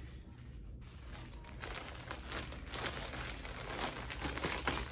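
Rustling and crinkling of clothes being folded and handled close to the microphone. It is soft at first and picks up after about a second and a half, becoming a dense run of small crackles.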